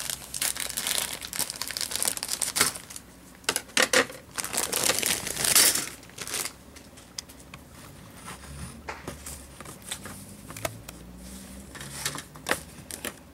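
Thin plastic packaging bag crinkling as it is worked and torn open. The crinkling is dense for the first six seconds or so, then gives way to quieter rustling with scattered light clicks.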